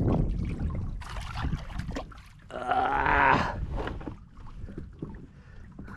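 Water splashing and sloshing against a kayak hull as a hooked barracuda is brought alongside, with a few knocks. Near the middle there is a brief pitched sound, about a second long, rising then falling.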